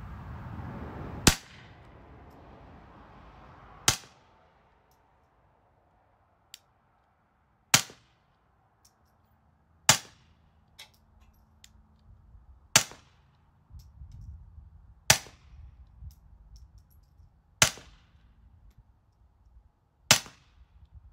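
Eight suppressed shots from a Browning Buck Mark .22 LR pistol fitted with a titanium .45-calibre suppressor, fired slowly, two to four seconds apart. The high-velocity supersonic 22 Thunderbolt rounds leave a bit of a supersonic crack in each shot.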